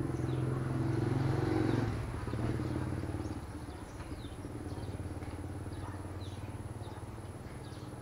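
A motor vehicle engine running close by, loudest for the first two seconds and then fading away. Faint short high bird chirps come and go over it.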